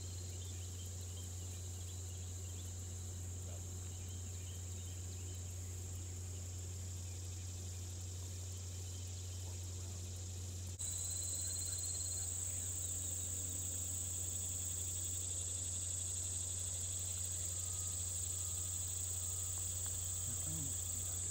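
Steady high-pitched chorus of summer insects over a steady low hum. The insect sound gets louder about eleven seconds in.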